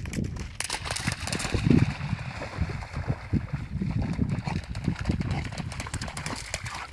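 Dutch shepherd dog splashing out through a shallow pond, with irregular sloshing splashes as it wades and swims.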